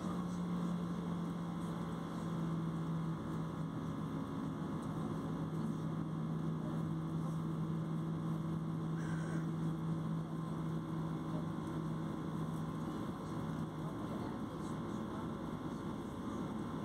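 Jet airliner cabin noise while taxiing: the engines at low power give a steady rumble with a low hum that fades out about three-quarters of the way through.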